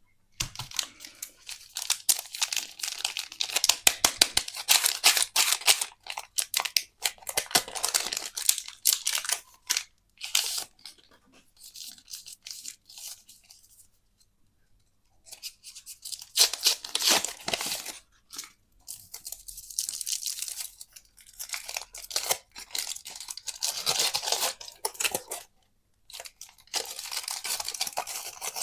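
Candy wrappers being torn open and crinkled: several bursts of dense crackling with short pauses between.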